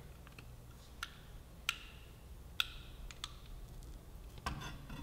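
A handful of light, sharp clicks and taps, spaced irregularly about a second apart, as a motorcycle front brake caliper and its small metal parts are handled by hand.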